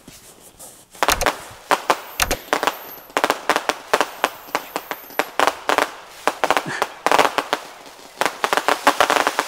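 Fireworks going off in a rapid barrage: two deep booms about a second and two seconds in, then a dense, irregular run of sharp bangs and pops that thickens toward the end, like a finale.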